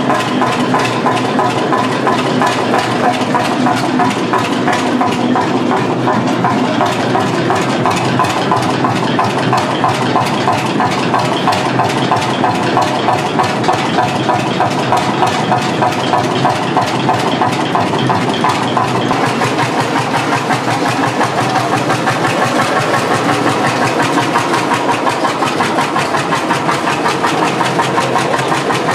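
1928 H.S.C.S K35 tractor engine idling steadily, with a fast, even pulse of exhaust beats.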